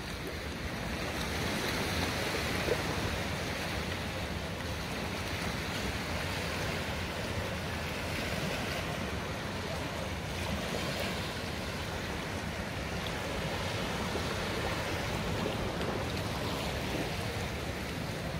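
Sea surf washing onto a beach: a steady, even wash with slight slow swells in loudness.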